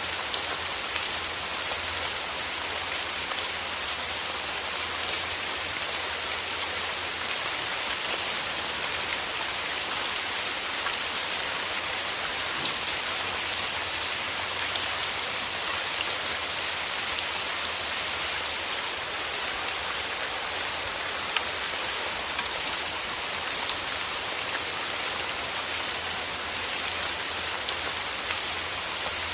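Steady rain falling, a dense even hiss with many small drops ticking on surfaces and a low rumble underneath.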